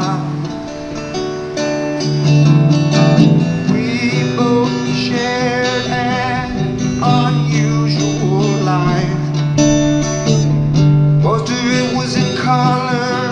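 Acoustic guitar strummed in an instrumental break of a live folk-country song, with a wavering higher melody line over the chords.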